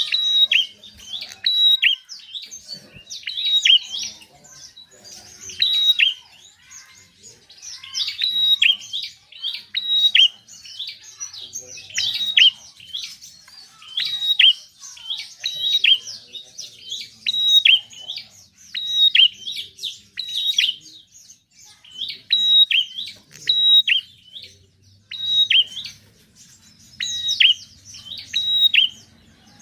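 Prinia (prenjak) singing energetically: short bursts of sharp, high chirps repeated every second or two.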